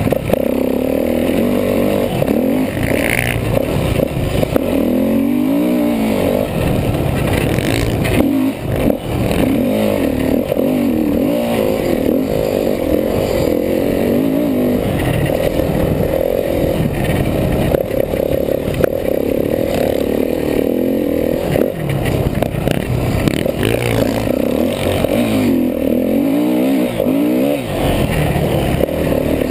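Kawasaki KX450F motocross bike's single-cylinder four-stroke engine running hard. Its revs climb and drop over and over as the throttle is opened and shut.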